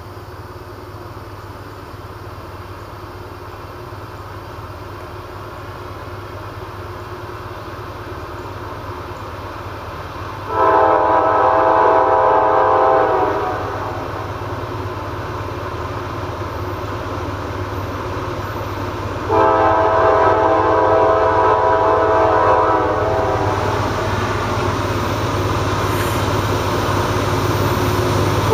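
Diesel locomotive air horn sounding two long blasts of about three seconds each, the warning for the grade crossing ahead, over the rising low rumble of the diesel engines of CSX C40-8W #7810 and AC44CW #216 approaching with a loaded coal train.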